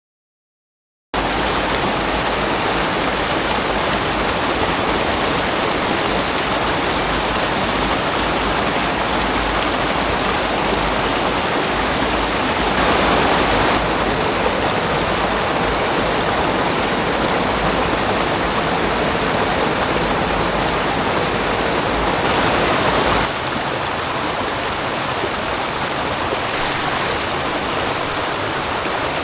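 Mountain stream water rushing over rocks, a steady loud rush that cuts in abruptly after a second of silence and drops slightly in level about three quarters of the way through.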